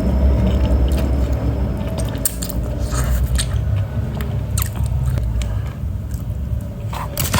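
A person chewing and biting spicy noodles close to the microphone, with scattered short wet clicks and smacks.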